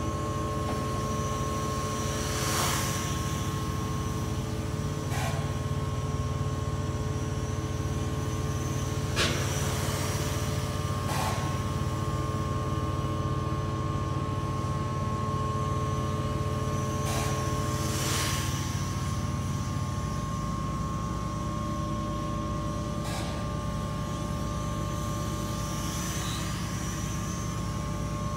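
Small toy quadcopter's propellers whirring in flight, a steady hum with several high whining tones, over a deep low hum that shifts about twenty seconds in. A few brief whooshes.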